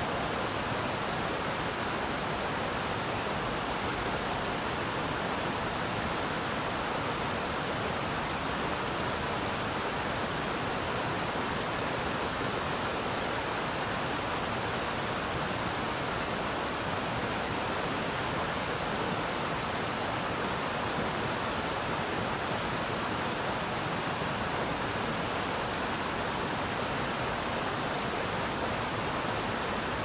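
Waterfall pouring down a steep rock face into a pool: a steady, unbroken rush of falling water.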